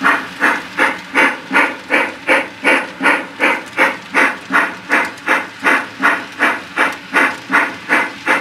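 Steam locomotive exhaust chuffing at a steady pace, about three even beats a second.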